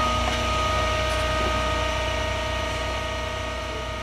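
Steady mechanical hum with a hiss underneath, easing off slightly toward the end.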